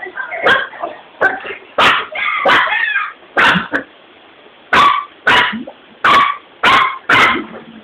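Dog barking repeatedly in short, sharp barks, about a dozen in irregular bunches, with a pause of about a second in the middle.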